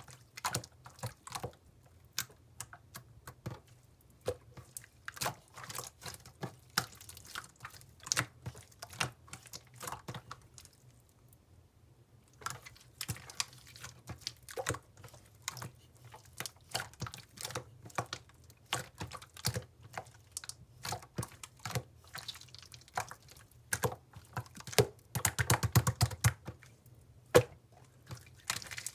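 Slime being kneaded and squeezed by hand, giving rapid wet clicks and pops. The clicks pause for about two seconds a little after ten seconds in, and come thick and loud in a burst near the end.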